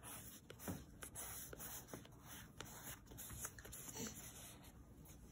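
Blue crayon scratching on paper in short, faint strokes, roughly three a second, as short horizontal lines are drawn.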